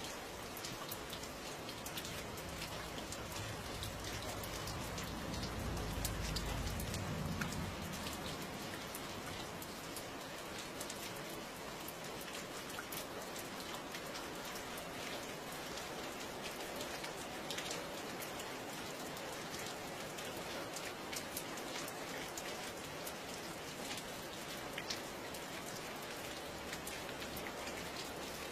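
Steady rain falling, with many separate drops ticking on a surface. A low rumble swells and fades from about four to eight seconds in.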